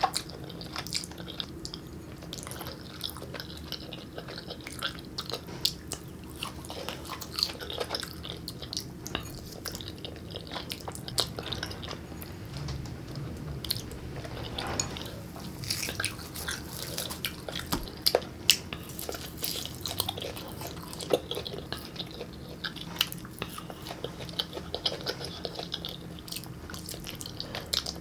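Close-miked mouth sounds of someone eating jjajangmyeon, Korean black bean noodles: wet chewing and smacking with many short, irregular clicks.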